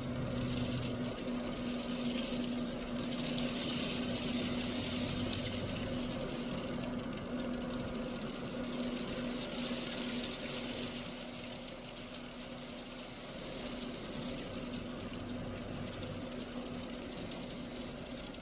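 Freezing rain of an ice storm falling, a steady hiss that swells and eases a couple of times, over a constant low hum.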